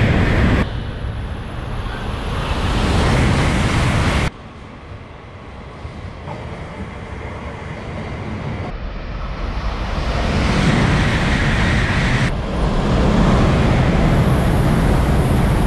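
Shinkansen bullet trains going through stations: a loud, steady rush of air and rail noise, in several short clips cut together so the sound changes abruptly about half a second, four seconds and twelve seconds in, quieter in the middle and swelling again toward the end.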